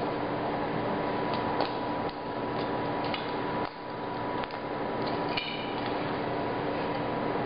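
Electric blower running steadily, a constant whoosh with a fixed hum, with a few faint light ticks and taps over it.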